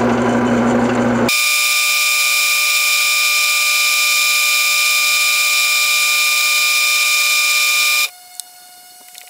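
Benchtop wood lathe spinning an acrylic pen blank while it is sanded with sandpaper: a steady, loud high-pitched whine with hiss. The sound changes abruptly about a second in and drops suddenly to a much quieter hum near the end, as at edits in the footage.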